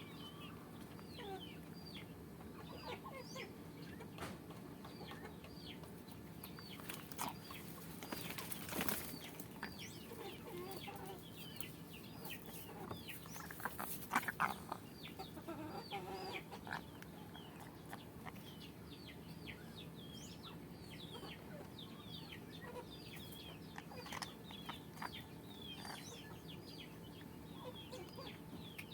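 Chickens clucking and chirping, with many short, high, falling chirps throughout. Two brief bursts of rustling or flapping come about a third of the way in and again near the middle, the second one the loudest.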